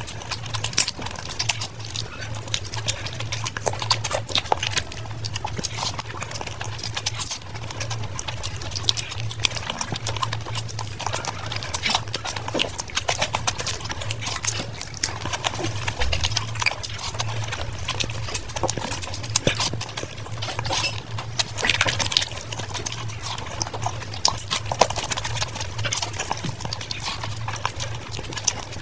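Close-miked wet chewing and lip-smacking of a person eating curry and rice by hand, a dense run of irregular moist mouth clicks, over a steady low hum.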